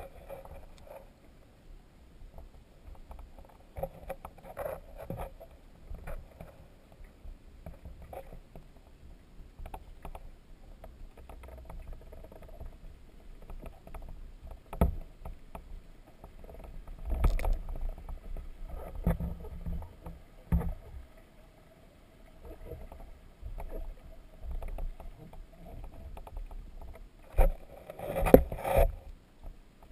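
Muffled, irregular knocks and bumps over a low watery rumble and a faint steady hum, heard through an underwater camera's microphone. The loudest clusters of knocks come about halfway through and near the end.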